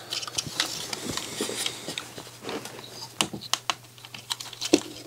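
Irregular light clicks and taps of hard plastic as the disassembled CD drive's tray and loading mechanism are handled and moved by hand.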